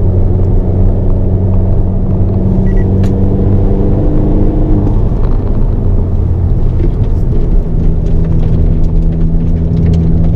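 Hyundai Avante N's 2.0-litre turbocharged four-cylinder engine pulling hard under load at track pace, heard from inside the cabin with road and tyre noise. The engine note holds fairly steady with small shifts in pitch through the corner.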